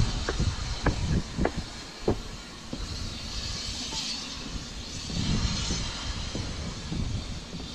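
Footsteps on the wooden planks of a footbridge, a few sharp steps a little over half a second apart, then a steady hiss with a low rumble.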